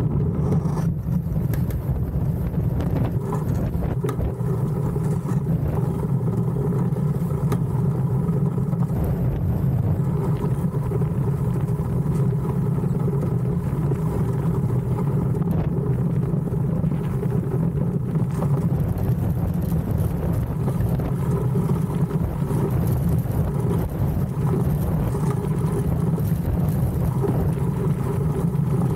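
DN-class iceboat's steel runners gliding over the ice at racing speed, a steady low rumble that does not let up.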